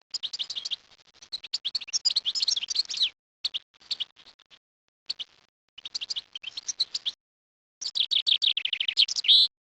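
A small songbird singing: a run of short phrases of rapid high notes with brief silent gaps between them, the loudest phrase near the end.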